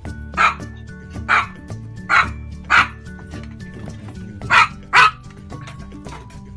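Chihuahua barking: six sharp, high-pitched yaps at uneven intervals, with the last two close together about four and a half to five seconds in.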